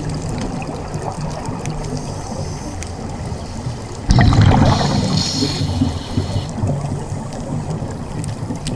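Underwater scuba sound: a diver's regulator breathing and exhaled air bubbling and rumbling, with a sudden louder burst of bubbles about four seconds in.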